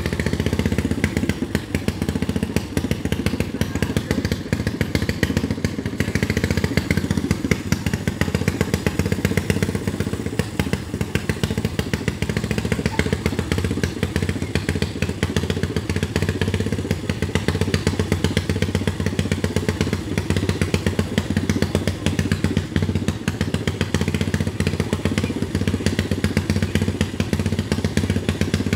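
Garden pulling tractor's small engine running loudly and steadily, a rapid even stream of firing pulses with no clear rise or fall in speed.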